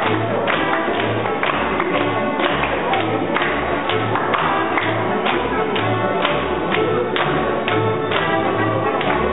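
Live Austrian folk dance music with a double bass thumping out the beat about twice a second, and the dancers clapping their hands in time with it.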